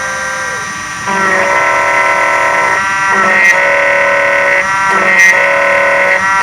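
Miracle A7 key machine's cutter motor whining as it cuts a GM 10-cut HU100 laser-cut key blade. It is louder from about a second in, and its pitch shifts in steps every second or two as the cutter works along the blade.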